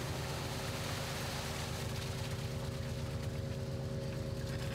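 A fishing boat's engine and deck machinery running steadily: a low, even hum with a fast throb underneath.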